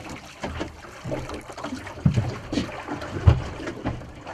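A hooked conger eel splashing at the surface beside a small boat as it is lifted in on the trace, with water slapping the hull. Irregular knocks throughout, the loudest two dull thumps about two and three seconds in.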